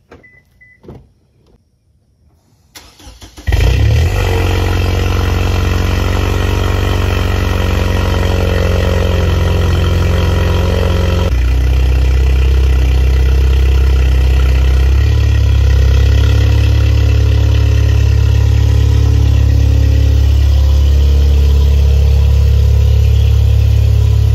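Lexus IS200t's turbocharged four-cylinder engine, breathing through an aftermarket exhaust, starting about three seconds in and settling into a loud, steady idle. The pitch drops about eleven seconds in, as a cold-started engine's fast idle steps down.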